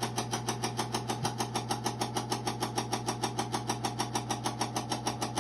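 Insignia NS-IMN44BS4 nugget ice maker running with a steady hum and a fast, even knocking of about six knocks a second. This is the knock noise fault, which the machine keeps making through its cleaning cycle.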